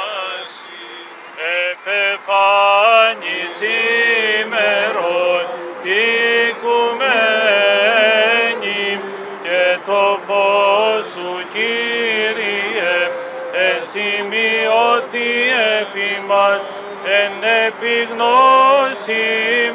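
Men's voices singing Greek Orthodox Byzantine chant, a melody moving over a sustained low drone.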